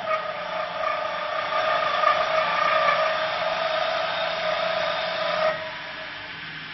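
Mini CNC wood lathe turning a spinning wooden blank, the cutting tool biting into the wood with a steady high whine over the rush of cutting. The cut stops abruptly about five and a half seconds in, leaving the lathe running more quietly.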